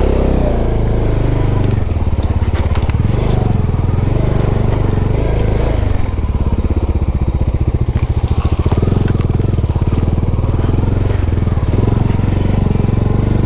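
Motorcycle engine running at low revs on a steep rocky descent, with tyres crunching over loose stones and occasional sharp knocks from rocks under the bike.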